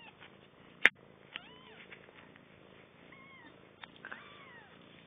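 Four-day-old kittens squeaking: several thin, high cries that rise and fall in pitch. A sharp click about a second in is the loudest sound.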